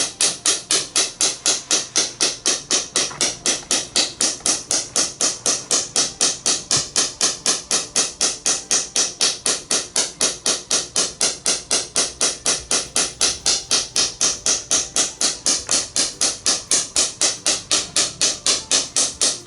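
Acoustic wave (radial shockwave) therapy applicator firing, a loud, even train of sharp clicking pulses at about four a second.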